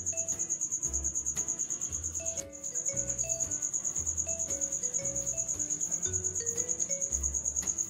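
Soft background music, a plucked melody stepping up and down over a low pulsing bass, with a high-pitched cricket chirping in rapid, even pulses underneath. Both drop out briefly about two and a half seconds in.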